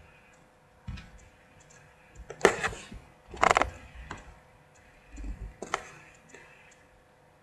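A clock ticking faintly, with several louder bursts of rustling and clicking handling noise, the loudest two about two and a half and three and a half seconds in.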